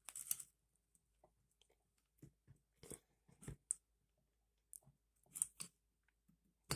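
Faint, scattered clicks and light scrapes of small steel pistol parts being fitted by hand: the recoil spring, spring plug and barrel bushing at the muzzle end of a 1911 pistol's slide.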